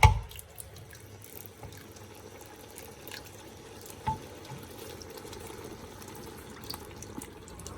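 Canned tomato sauce being poured into a pan of browned mince: a soft, steady liquid pouring sound, with a single knock about four seconds in.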